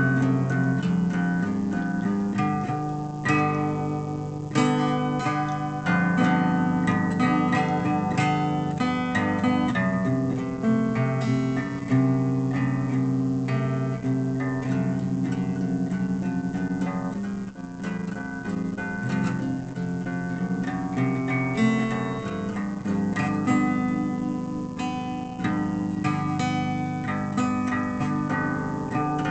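Guitar music: plucked and strummed notes played continuously.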